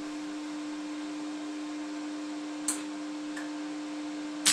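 Steady electrical hum of a MIG welder switched on and ready, with a light click a little before three seconds in. At the very end comes the sudden, loud crackle of the MIG arc striking for a tack weld on a steel tube frame.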